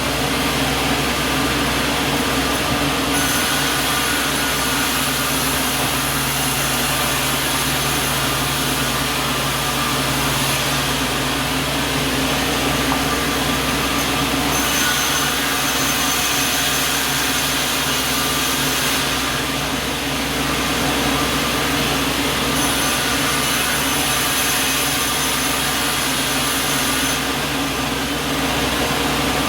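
Sawmill running steadily, a machine drone with a layer of high hiss that comes and goes every few seconds.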